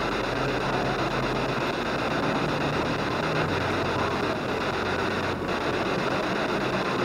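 P-SB7 spirit box sweeping the radio band, its steady static hiss playing through a small external speaker, with faint low hum tones that shift in pitch.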